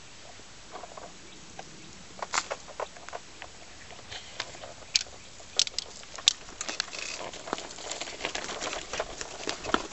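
Crunching and crackling of footsteps on dry leaf litter and twigs: scattered sharp crackles at first, becoming denser and more continuous from about seven seconds in.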